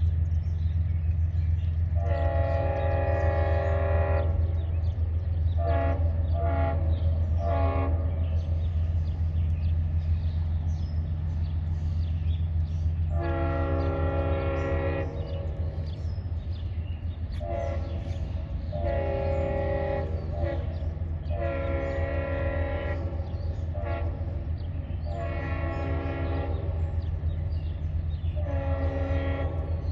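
Diesel freight locomotive's air horn sounding a series of long and short multi-tone blasts, warning for a run of grade crossings. A steady low rumble of the passing train runs underneath.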